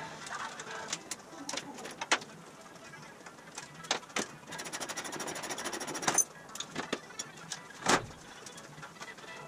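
Hand-work on a sheet-aluminium car body: scattered clicks and taps, a rapid rattling run lasting about a second and a half near the middle that ends in a sharp click, and a loud knock near the end.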